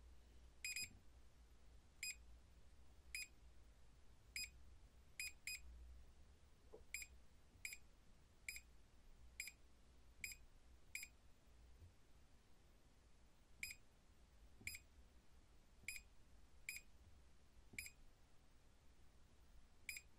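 Short, high electronic beeps from a 4D green laser level's keypad, one beep per button press as its laser lines are switched on and changed. There are about eighteen beeps at irregular intervals.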